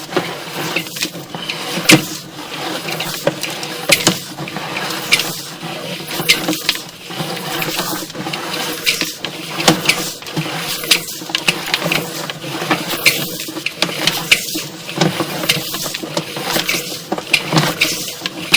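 Sewer inspection camera being pushed along a lined sewer pipe: a steady hiss with irregular clicks and knocks from the push cable and camera head working through the line.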